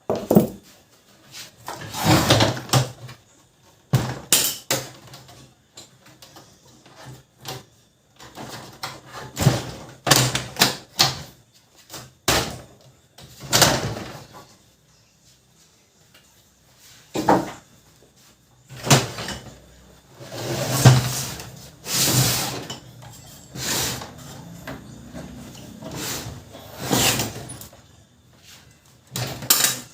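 Plastic side cover and housing panels of a Brother MFC-7360 laser printer being unclipped and handled: irregular clicks, knocks and short scraping rustles, on and off.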